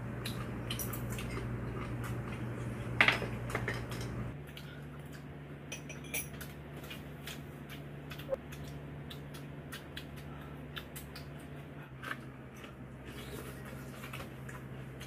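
Eating utensils clicking and clinking against dishes during a meal, in scattered single knocks with one sharper click about three seconds in. Under them runs a steady low hum that gets quieter about four seconds in.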